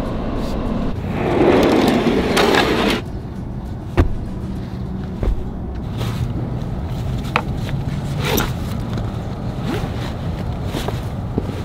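A duffel bag being handled and packed inside a car: a loud fabric rustle about a second in, then scattered sharp clicks of its buckles and zipper over a low steady hum.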